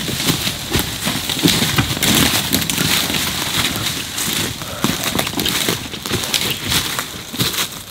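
Footsteps of two people crunching and crackling through dry leaves and twigs on the forest floor as they walk, carrying a deer slung from a pole between them.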